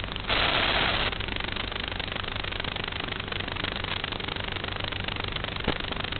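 Steady drone of an FPV model aircraft's electric motor, with a burst of hiss lasting under a second about a third of a second in and a short click near the end.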